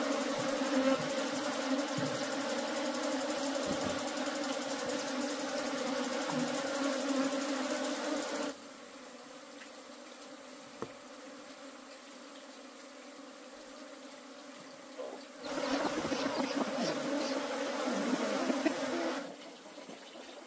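Honeybees buzzing in a steady swarm hum. It cuts off abruptly about eight seconds in, comes back about fifteen seconds in, and stops again near the end.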